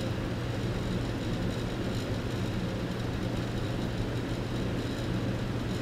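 Coleman central heat pump system running on a mild day: a steady hum with a constant low tone under even airflow noise.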